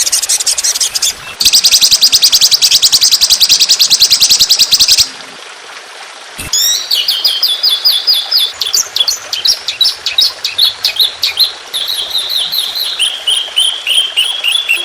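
Songbird song: a very fast, loud buzzing trill of rapid-fire notes lasting about three and a half seconds, then after a short pause a long run of quick, repeated high chirps that slowly step down in pitch. This is 'tembakan' fill-in song, the rapid-fire phrases meant for a young bird to copy.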